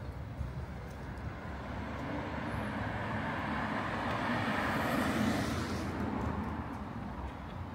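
A car drives past, its engine and tyre noise swelling to a peak about five seconds in and then fading away.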